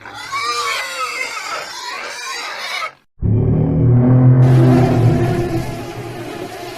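Two different recorded animal calls, spliced one after the other. First comes a higher call with pitch that rises and falls over about three seconds. After a sudden cut, a deep, drawn-out low call follows.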